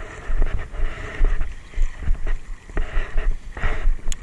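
Legs wading through shallow seawater, with uneven splashing and swishing, under wind buffeting the microphone in irregular gusts.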